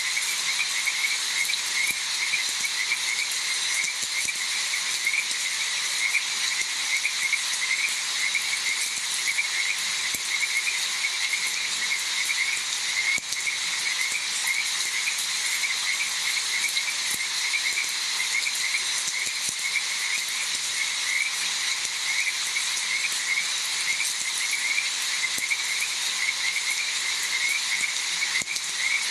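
Steady rain with a dense chorus of frogs calling over it, many short, repeated calls a second and no let-up.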